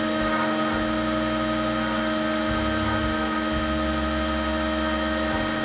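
CNC router spindle running with a steady whine while its bit carves pine on the finishing pass. Underneath, a low hum cuts in and out every second or two as the machine moves.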